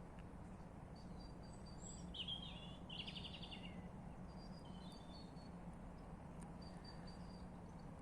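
Wild songbirds singing faintly: thin high whistled notes throughout, with a louder short trill about two to three seconds in, over a steady low hum.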